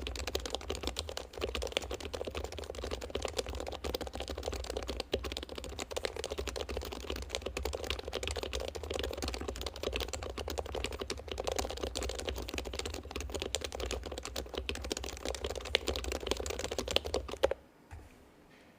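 Steady, fast typing on a mechanical keyboard, a dense run of keystroke clicks that stops suddenly near the end.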